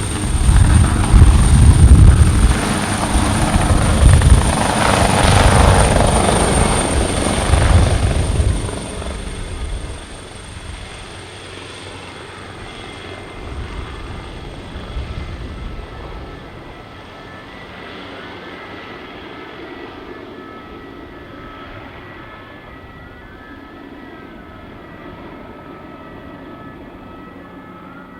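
Leonardo AW139 twin-turbine helicopter: loud rotor beating with a steady high turbine whine for about nine seconds, then the sound drops sharply and the whine fades away. Faint rising-and-falling siren tones come in near the end.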